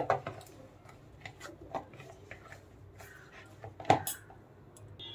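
Hands pressing and patting a potato-and-flour dough in a plastic bowl: faint scattered taps and soft knocks, with a sharper knock about four seconds in.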